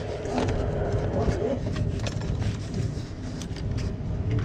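Steady low machinery rumble on board a ship, with scattered small clicks and knocks on top.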